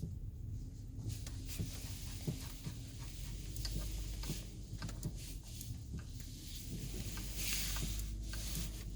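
Knocking from a BMW F10: irregular short knocks and clicks over a steady low rumble.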